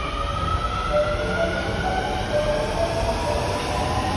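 Osaka Metro Midosuji Line subway train pulling out of the station, its traction motors whining in a steadily rising pitch as it gathers speed, over the steady rumble of the cars.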